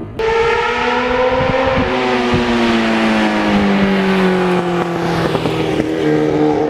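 Motorcycle engine running at steady revs, its pitch easing slowly down and then rising again about six seconds in.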